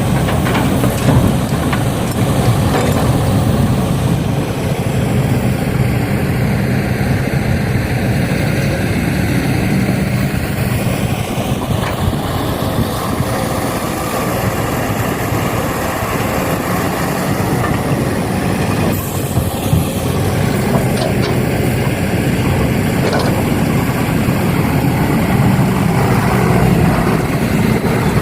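Heavy diesel engine running steadily, a continuous low hum from earthmoving equipment at work.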